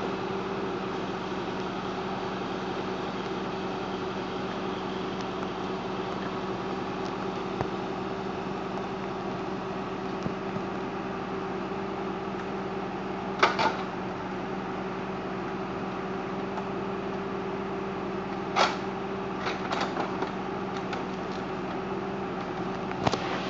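Valtra Valmet 6800 tractor's diesel engine running steadily, driving a forestry trailer's hydraulic log crane. Sharp wooden knocks of logs being handled by the grapple come about 13 seconds in and several more between about 18 and 23 seconds.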